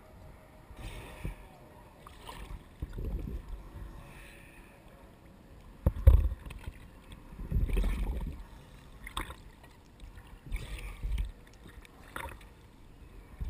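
Dock water sloshing and slapping against a GoPro camera's housing held at the surface, in irregular gushes every second or two; the loudest comes about six seconds in.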